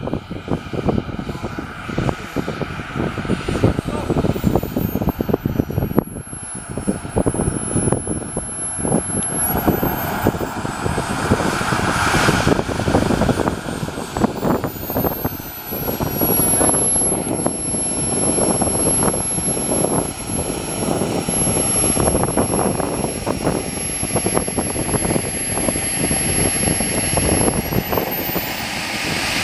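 Radio-controlled model jet's turbine engine running as the jet taxis, a high-pitched whine over a rushing exhaust noise. The whine drops and rises a few times as the throttle is worked.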